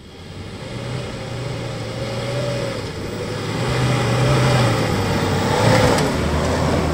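Isuzu D-Max pickup's engine working hard up a steep loose-rock climb, its note wavering as the revs rise and fall, with tyres crunching over stones. It grows louder as the truck comes close.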